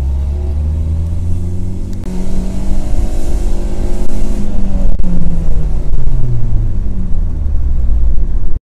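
Ford Focus Mk1 1.6-litre four-cylinder engine heard from inside the cabin, revving up in gear under acceleration from about 1,500 to 6,000 rpm. About five seconds in it is knocked out of gear and the revs fall back toward idle while the car coasts with road noise. The sound cuts off just before the end.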